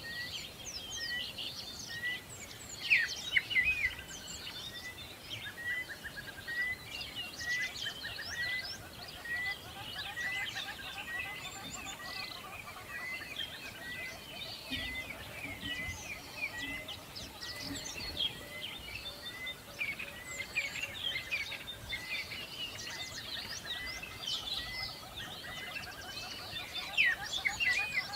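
A chorus of small birds chirping and singing, several voices overlapping, with one bird repeating a short chirp about one and a half times a second through most of it.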